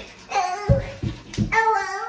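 A young girl singing a tune in long held notes, with a few dull low thumps underneath.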